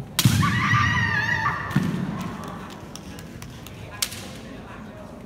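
A loud thud followed by a long, high-pitched wavering shout in the manner of a kendo kiai, with a second thud about two seconds in. A single sharp crack follows near four seconds.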